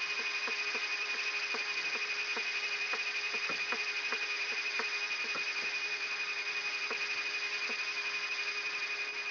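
Cockpit background on a Yak-42D's cockpit voice recorder while the jet holds on the runway: a steady high whine and a lower hum over hiss, with a regular light tick about three times a second.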